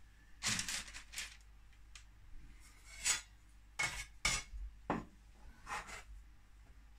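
Metal bench scraper cutting through bread dough and knocking against the worktop: a series of short scrapes and taps scattered over several seconds.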